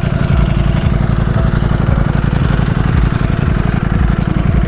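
Ducati 1103 cc Desmosedici Stradale V4 engine idling steadily with an even, rapid pulse.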